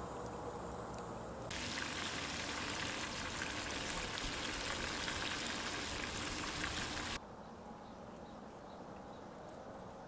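Hot oil sizzling as battered pieces deep-fry in a pot. The hiss gets much louder about a second and a half in, then cuts off abruptly a few seconds before the end, leaving a much quieter background.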